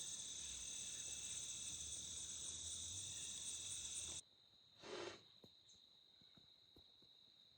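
Steady, high-pitched chorus of insects trilling, cut off abruptly about four seconds in, leaving a single fainter steady trill, with a brief rush of noise about five seconds in and a few faint ticks.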